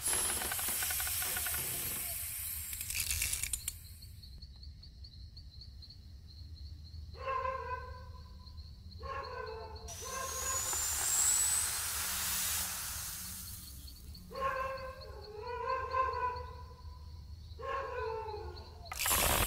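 Animated-film sound effects: stretches of hissing noise, with short pitched cartoon creature voices of the snail characters in two clusters, one around the middle and one near the end.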